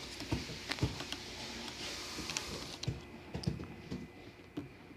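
Irregular light clicks and taps of small phone parts being handled and fitted together while a Nexus 5 is reassembled.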